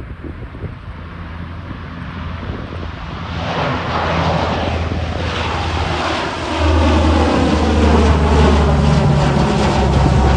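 Four-engine turboprop aircraft making a low flyby. The drone of its engines and propellers grows steadily louder as it closes in, with a step up in a deep hum about six and a half seconds in.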